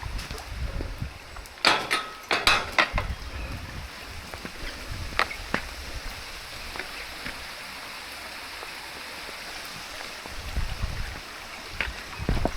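Wind buffeting the microphone in gusts over a steady hiss of wind and rain on an open hillside, with a few sharp clicks and rustles in the first few seconds and one more around five seconds in.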